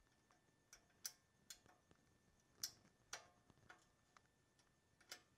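Faint, irregular light metallic clicks of small valve parts against the valve spring retainer and valve stem while a valve is assembled under a lever-type valve spring compressor on a Porsche 912 cylinder head.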